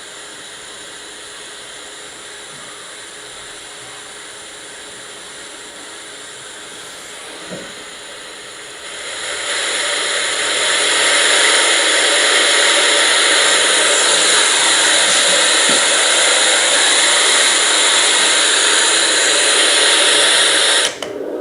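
Portable white noise sound machine playing a steady hiss. About nine seconds in the hiss grows much louder and brighter, just after a faint click, and it dips briefly near the end.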